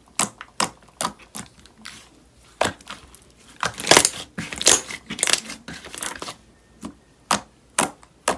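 Slime being squeezed and poked by hand: irregular sticky crackles and pops, one or two a second, loudest about four to five seconds in.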